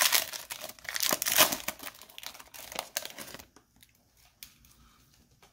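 Foil pack of 2020 Panini Prizm Draft Picks football cards being torn open and crinkled, a dense crackling for about three and a half seconds. Then it goes nearly quiet, with a few faint clicks as the cards are handled.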